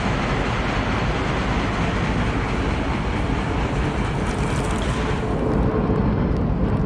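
Steady outdoor street noise with a constant low rumble, as of a busy city street heard while walking.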